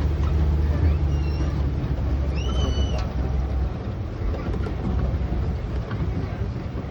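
Safari tour vehicle running with a low engine rumble that eases off about three seconds in. A couple of short, high squeals rise and then hold.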